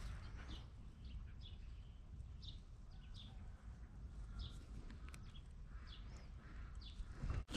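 A bird calling with short, falling chirps, roughly one a second, over a steady low rumble.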